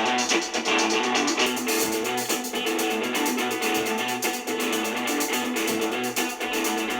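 A guitar-led song with strummed guitar and drums played through a small portable Bluetooth speaker and recorded by a microphone, with very little bass below the low mids.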